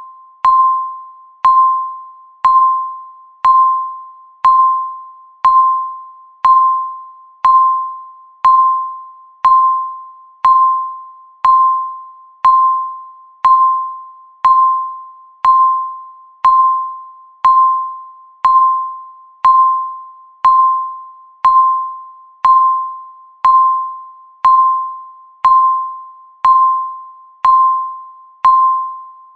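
Countdown timer beeping once a second: a single clear chime-like tone that strikes sharply and fades out before the next one.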